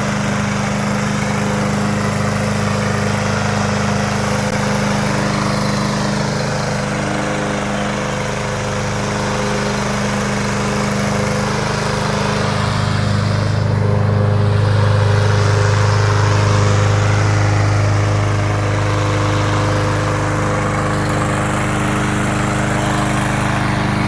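Walk-behind lawn mower's small gasoline engine running steadily, a little louder for several seconds around the middle.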